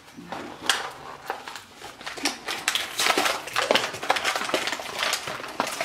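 Foil toy packet being crinkled and torn open: a rapid, irregular run of crackles and rustles.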